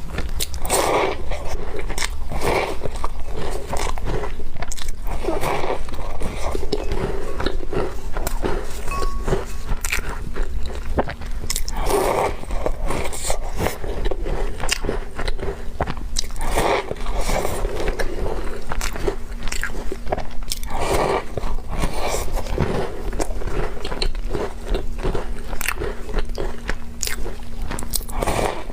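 Close-miked eating: walnut cookies being bitten and chewed, with many small crisp crunching clicks and recurring bursts of chewing every second or two.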